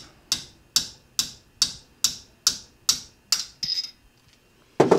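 Hammer tapping a Harley-Davidson Sportster clutch throwout bearing out of its adjustment screw, without a bearing press: about eight light, evenly spaced metal taps, a little over two a second, then a brief metallic ring. Two louder knocks come near the end.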